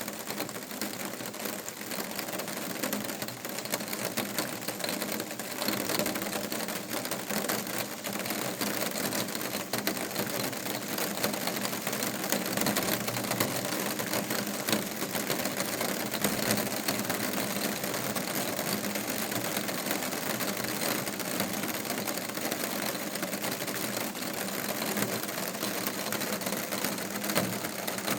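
Rain falling steadily, a dense, continuous patter of drops on a hard surface.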